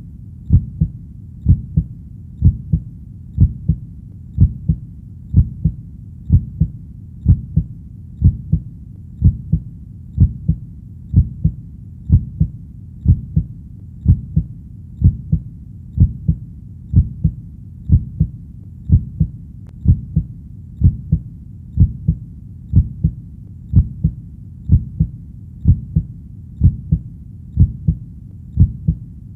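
Heartbeat, a steady rhythm of low double beats (lub-dub) about once a second, over a faint steady low background.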